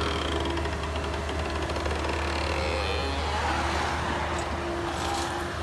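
Komatsu PC138US excavator's diesel engine running steadily with a low drone while the machine works, scooping soil and lifting the full bucket.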